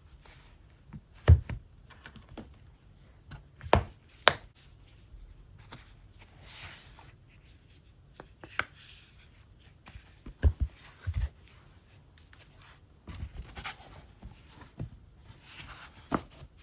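Scattered light taps and knocks with a few short rustles, as hands handle the iPad, the Apple Pencil and their packaging on a desk. The sharpest knock comes about a second in.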